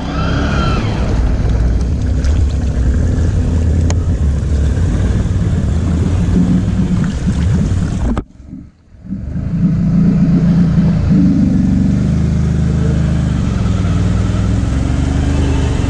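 Can-Am ATV engine running and revving hard through mud. It breaks off abruptly for about a second about eight seconds in, then comes back and climbs in pitch about eleven seconds in.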